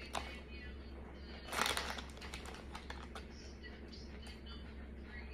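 Crinkling of a Doritos chip bag as a hand rummages in it for chips, with chewing; the densest, loudest crinkling comes about a second and a half in.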